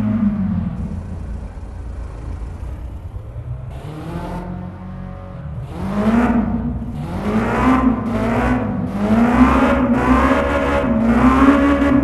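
Kawasaki Ninja H2R's supercharged inline-four engine, its pitch falling as it comes off the throttle, running lower and quieter for a few seconds, then from about six seconds in climbing again in a series of short rising surges with brief dips between them.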